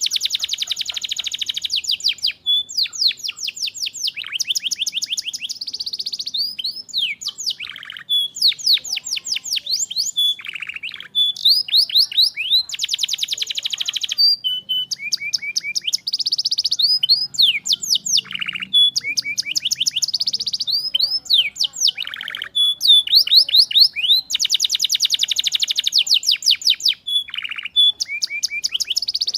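Domestic canary singing without a break: fast trills of rapidly repeated high notes, alternating with dense buzzy rolls and short falling notes.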